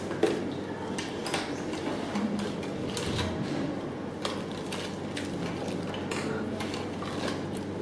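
Small grooming scissors snipping matted rabbit fur: irregular small metallic clicks over light rustling.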